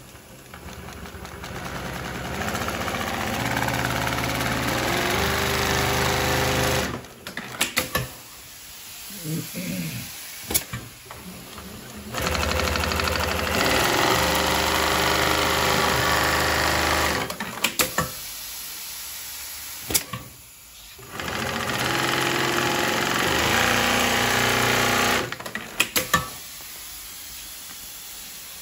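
Pfaff long-arm industrial sewing machine with triple feed and roller puller stitching heavy webbing in three runs, the first one picking up speed. Each run ends in a burst of sharp clicks as the machine stops.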